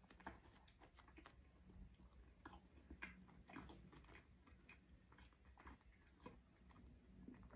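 A person chewing a mouthful of a chicken club sandwich with a breaded chicken fillet, close to the microphone: faint, irregular mouth clicks and soft crunches.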